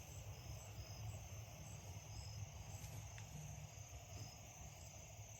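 Crickets chirping in the evening, faint and high-pitched, in an even rhythm of about two chirps a second, over a low outdoor rumble.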